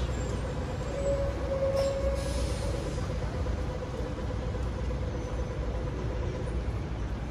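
Street vehicle noise: a steady low rumble with a faint steady whine over it, a little louder between about one and two and a half seconds in.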